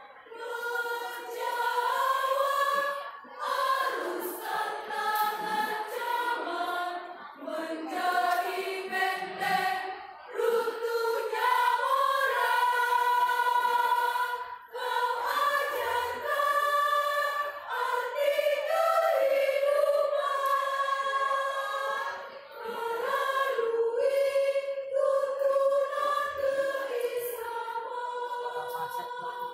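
Women's choir singing, in sung phrases with a few brief breaks between them.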